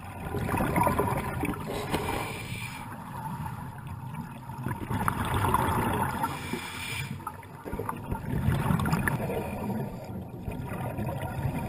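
Scuba diver breathing through a regulator underwater: exhaled bubbles gurgle and rush in swells about a second in, around five to six seconds, and again around eight to nine seconds, over a steady underwater hiss.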